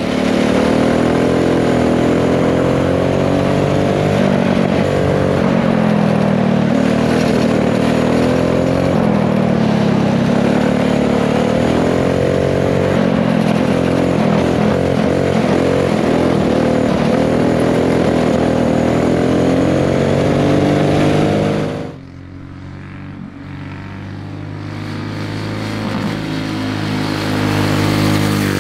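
Tillotson 212 single-cylinder kart engine with a Stage 1 kit running hard at high revs, its pitch wavering as the kart laps the track. About three quarters through it drops away sharply as the throttle comes off, then builds back up.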